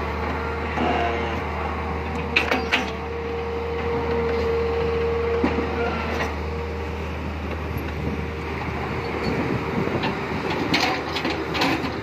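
Tata Hitachi EX200LC tracked excavator's diesel engine running steadily under digging load, with a whine that swells in the middle. Sharp knocks come twice near the start and a few times near the end as the bucket works the rubble.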